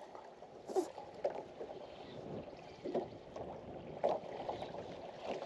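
Small waves lapping and slapping against the hull of a small skiff, with a few sharper slaps.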